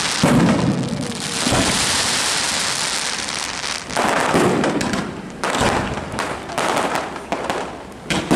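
Fireworks display: aerial shells bursting with heavy booms amid continuous crackling, with rapid sharp crackles thickening in the second half.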